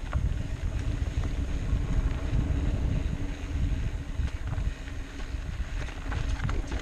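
Wind buffeting the microphone over the low rumble of mountain bike tyres rolling on a dirt trail, with scattered light clicks and rattles from the bike.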